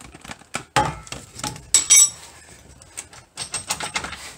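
A wrench clinking and knocking against metal front-suspension parts: a string of sharp metallic clinks, the loudest cluster about two seconds in.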